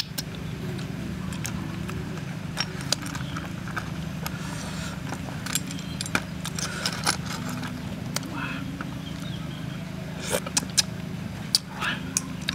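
Metal spoon clinking and scraping against shellfish shells and aluminium foil, a scatter of sharp separate clicks, over a steady low hum.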